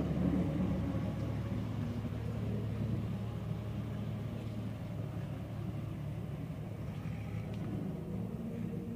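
Aircraft engines droning overhead, a steady low hum that slowly fades.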